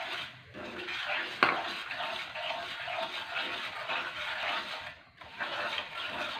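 Silicone spatula stirring and scraping a thick paste of ghee-roasted whole wheat flour and sugar around a frying pan, in repeated strokes. One sharp tap about a second and a half in.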